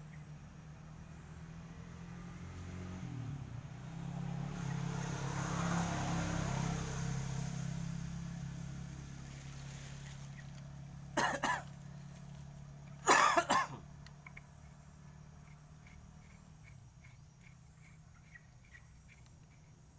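Small single-cylinder dompeng diesel engine, one that had been flooded, running with a steady low hum that swells for a few seconds and settles again. A person coughs twice near the middle.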